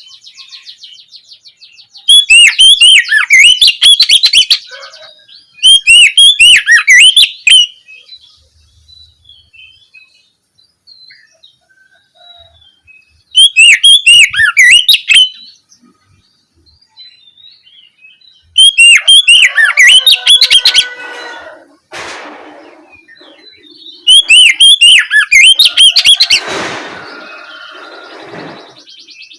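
Oriental magpie-robin (kacer) singing in loud phrases of two to three seconds, each a fast run of sharp, repeated high notes, with short pauses between the phrases. Near the end, a lower, rougher sound runs under the song.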